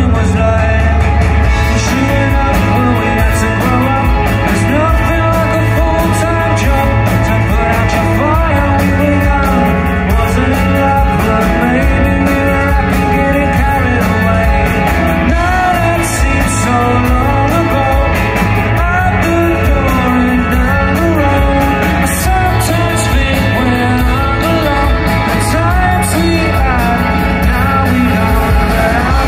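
Live indie rock band playing through a PA: electric guitars, bass and drums with a male lead vocal singing over them.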